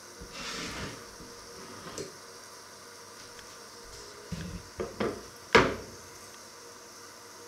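Wooden cutting board handled and set down on a glass cooktop: a few knocks in quick succession about four to five and a half seconds in, the last and loudest as it lands. A short hiss near the start.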